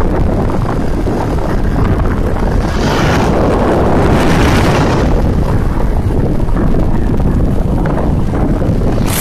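Loud, steady rushing of a waterfall, with wind buffeting the microphone. It swells from about three to five seconds in, and a brief sharp hiss comes near the end.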